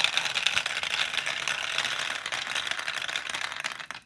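Steel marbles rattling and clicking rapidly as a handful of them runs down through the plastic cubes of a Q-Ba-Maze 2.0 marble run, a dense stream of many small clicks that thins out and stops just before the end.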